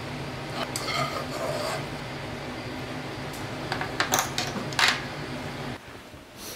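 A metal spoon and fork are set down with a few sharp clinks about four to five seconds in. Before that come lighter clicks of chopsticks against a ceramic plate as pasta is twirled onto it. A steady low hum underneath stops near the end.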